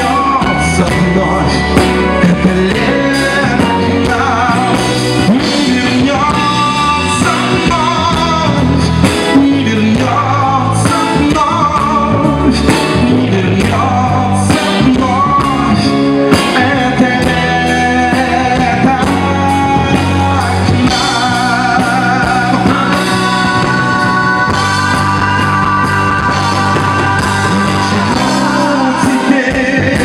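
Live band playing a song: a sung melody over electric guitars, bass guitar and drums with a steady beat.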